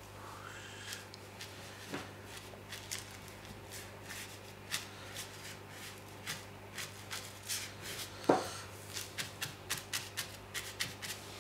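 Ink brush tapping and flicking on paper: a run of short dry taps and strokes that come quicker in the second half, with one louder tap about eight seconds in. A steady low hum runs underneath.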